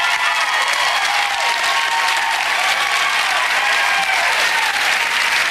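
Television studio audience applauding steadily, with voices cheering through the clapping.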